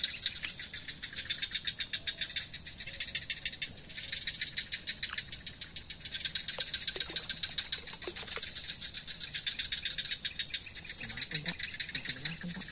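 Night insects chirping steadily in fast, even pulses, a shrill chorus that goes on throughout. A few faint low sounds come in near the end.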